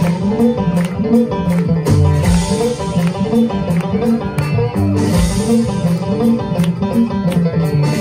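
Live acoustic folk-metal band playing an instrumental passage: mandolin, guitar, banjo and upright bass picking together at a driving rhythm.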